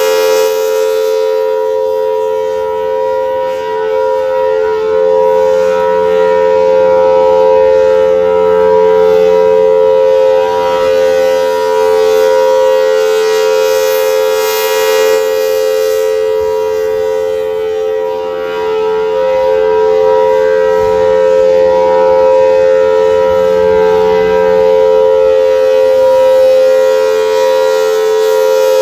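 Federal Signal Thunderbolt 1000T tornado siren sounding its steady full-alert tone, two close notes held together. The sound swells and fades slowly as the rotating siren head turns toward and away.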